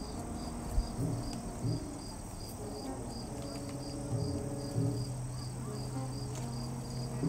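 Insects chirping in an even rhythm, about three chirps a second, over a steady high-pitched insect drone. Soft low held notes sound underneath.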